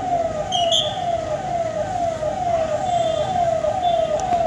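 Vehicle siren sounding in quick, repeated falling sweeps, about two to three a second, with a few short high whistle tones over it.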